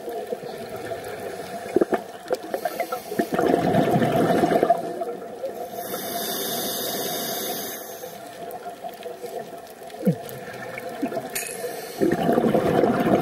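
Scuba regulator breathing underwater: a loud rush of exhaled bubbles about three to five seconds in, a steady hiss of inhaled air around six to eight seconds, and another burst of bubbles near the end.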